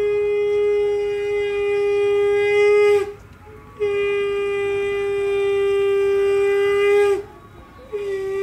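Conch shell (shankha) blown in long, steady, single-pitched blasts: one blast stops about three seconds in, a second runs for about three seconds, and a third starts near the end. Each blast dips slightly in pitch as it stops.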